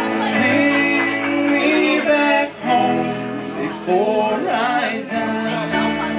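Live country band playing: a male voice sings over electric guitar and upright double bass.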